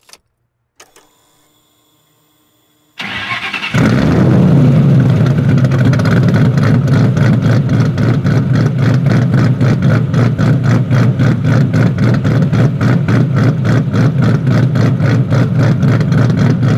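Ford Mustang GT's 4.6 L three-valve V8, stroked to 5.0 L and fitted with aggressive Comp Cams Stage 3 camshafts and long-tube headers, is started about three seconds in. It catches quickly and settles into a loud, rhythmic, loping idle, the lope of the aggressive cams.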